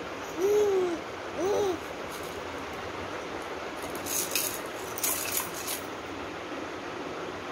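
Two short hoots, each rising and then falling in pitch, in the first two seconds. Then a plastic baby rattle is shaken in two brief rattling spells, about four and five seconds in.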